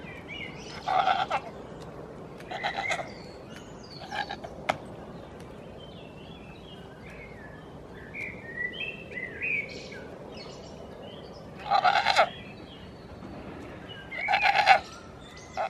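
Goats bleating: about six short bleats, three in the first few seconds and more near the end, with faint bird chirps between them.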